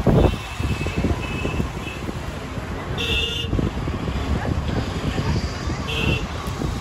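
Street traffic with vehicle horns honking in short beeps, the clearest a half-second honk about three seconds in and a shorter one near the end, over a steady rumble of wind on the microphone. A thump at the very start.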